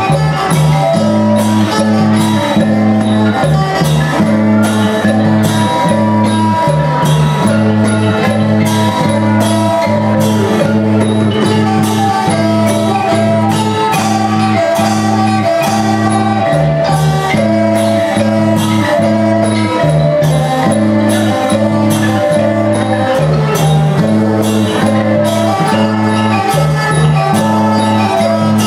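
A live student band playing Thai folk music for a dance: a steady percussion beat with cymbal strokes over sustained bass notes and a changing melody.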